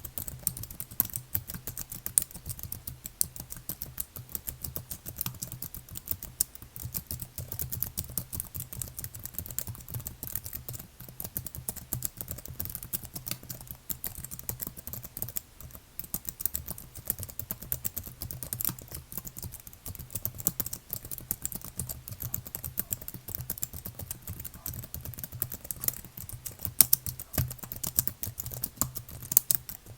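Continuous fast typing on a computer keyboard, a dense stream of key clicks with no pauses.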